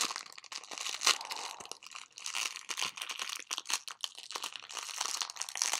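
Clear plastic jewelry packaging crinkling and crackling in quick, irregular bursts as it is handled and opened by hand.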